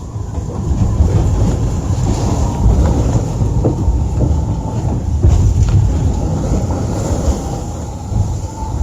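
The loud, steady rumble of a foiling IMOCA 60 racing yacht's hull driving through the sea at speed, heard from inside the boat, with the odd click or knock over it.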